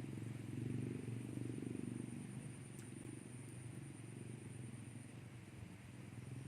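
Low engine rumble with a fast, even pulse, loudest in the first couple of seconds and then slowly fading.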